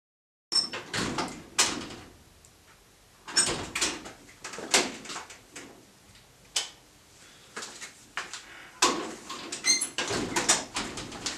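Irregular knocks, clicks and scuffs of a person moving about a workshop, handling things and walking on the concrete floor, with a short squeak near the end.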